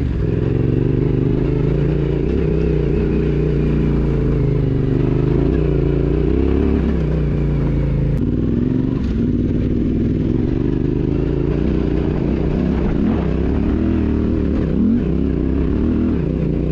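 Yamaha Ténéré 700's parallel-twin engine running while the bike is ridden, its note rising and falling with the throttle, with a sudden change in the note about eight seconds in.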